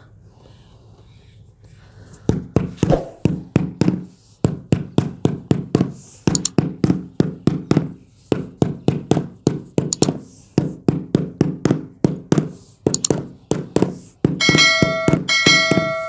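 Marble floor tile being tapped down into its mortar bed with a rubber mallet: a long run of quick knocks, about four a second with short pauses, which seats the tile level with no voids beneath it. Near the end a short chiming jingle sounds over it.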